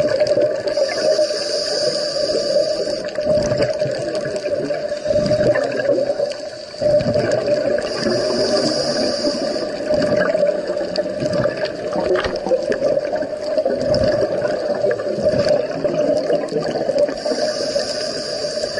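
Underwater scuba diving sound: a diver's regulator breathing with bubbling of exhaled air. A higher hiss comes back about every eight seconds.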